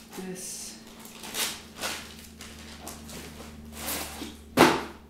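Plastic packaging rustling and crinkling in a few short bursts as parts and the owner's manual are handled and pulled from their wrapping. The loudest rustle comes near the end.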